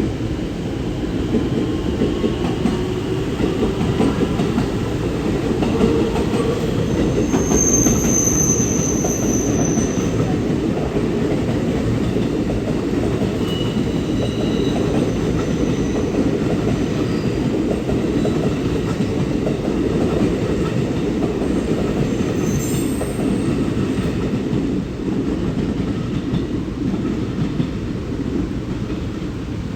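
A JR West conventional-line train running along the platform, its wheels and cars rumbling steadily, with brief high wheel squeals about eight seconds in and again a few seconds later.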